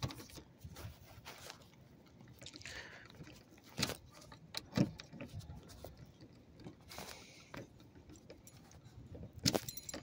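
A bunch of car keys jangling and clicking as a newly cut key for a 2014 Honda Accord is put into the door lock and worked at the door handle. There are scattered short clicks, the clearest about four and five seconds in. The key was cut for the ignition and may need recutting to work the door.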